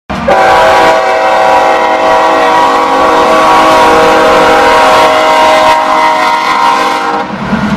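Diesel freight locomotive's multi-chime air horn blowing one long, steady chord, which cuts off about seven seconds in, over the low rumble of the passing train.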